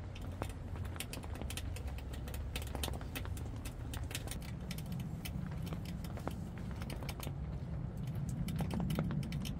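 Raindrops tapping irregularly on the canvas of an inflatable tent, heard from inside as scattered light ticks over a low rumble.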